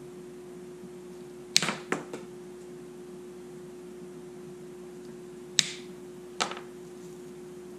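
Pliers snapping through the plastic insulation of an extension cord's conductors to strip them. There is a sharp snap about a second and a half in, with two smaller clicks right after it, then two more snaps nearly a second apart later on.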